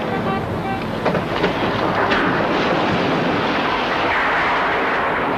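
A tall industrial chimney stack, felled with explosives, crashing into the ground. There are a couple of sharp cracks about a second in, then a long, dense crashing noise of breaking masonry and debris.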